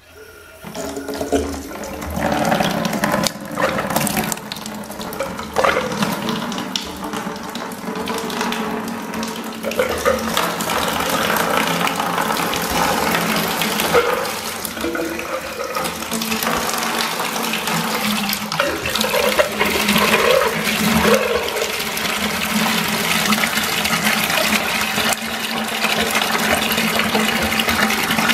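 Water running from a freestanding tub filler's spout into a plastic bucket, starting suddenly as the faucet is opened and then pouring steadily, with a few knocks in the first several seconds. It is a water test of the newly plumbed faucet, flushing the new lines and checking the connections for leaks.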